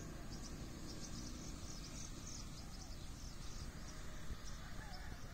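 Outdoor ambience: small birds chirping in quick high bursts, busiest in the first three seconds, over a steady low rumble.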